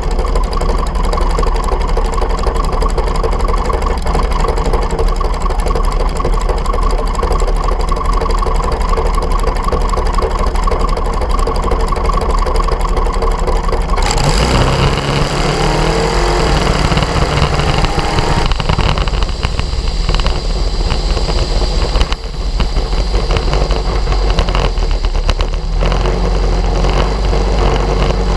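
Dragster engine idling steadily, then about halfway through it launches: the engine goes to full throttle and its pitch climbs as the car accelerates for about four seconds. It then drops off abruptly, leaving a rough rush of engine and wind noise as the car runs on down the strip.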